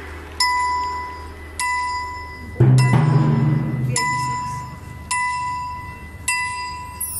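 Youth indoor percussion ensemble playing mallet keyboards in a slow passage: a ringing, bell-like note is struck about once a second and left to ring. A deep low note joins about two and a half seconds in.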